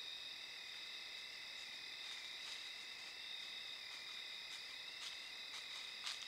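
Steady night chorus of crickets and other insects, several high-pitched trills held unbroken at once, with a few faint clicks scattered through, the sharpest near the end.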